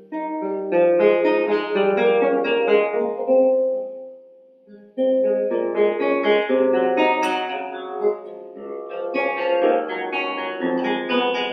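Background music played on a plucked guitar: a run of ringing notes that dies away about four seconds in, then starts again and carries on.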